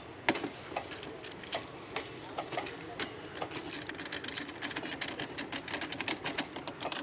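Rapid metallic clicking and clinking as workers fit and tighten the clamps of a hydraulic rail tensor on a cut rail. The clicks come faster from about halfway on, over a steady low hum.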